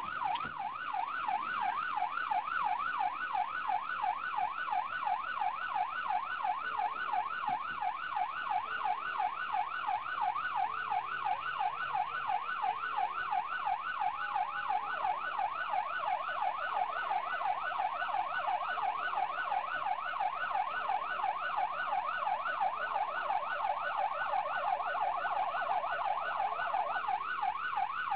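Police siren in fast yelp mode, its pitch rising and falling several times a second without a break, signalling a driver who will not stop. A steadier lower tone runs under it from about halfway through until shortly before the end.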